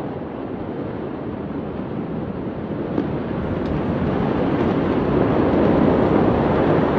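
Steady outdoor rushing noise that grows louder, with a couple of faint pops about three seconds in.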